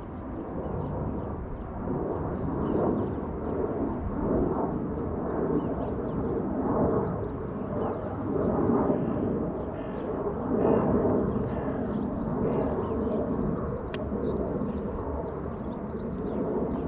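Small birds twittering high and fast in the background, in two long stretches, over a loud, uneven low rush of outdoor noise.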